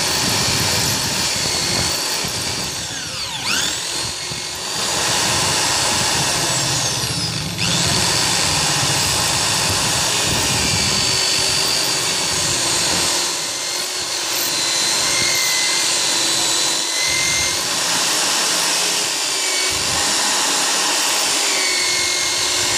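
Handheld electric drill running steadily as its bit bores into a motorcycle battery's lead terminal; the motor's speed dips and picks up again a few seconds in.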